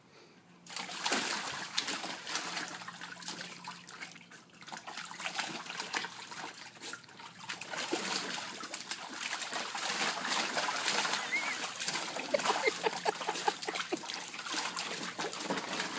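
A puppy splashing and pawing at shallow water in a plastic kiddie pool: irregular splashes and sloshing that start about a second in and keep going.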